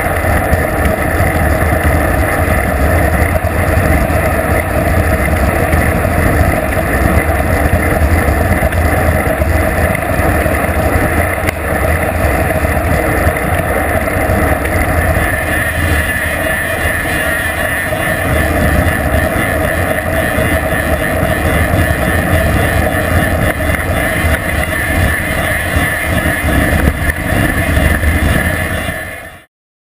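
Steady wind rushing and buffeting over a GoPro camera's microphone as a bicycle speeds downhill, with a deep rumble under road and tyre noise. It fades out sharply near the end.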